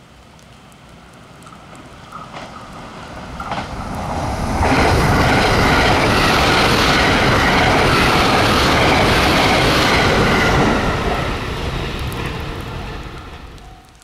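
A JR West limited express electric train passing at speed: its rumble and wheel noise build up with a couple of clicks on the rails, stay loud for about six seconds as the cars go by, then fade away.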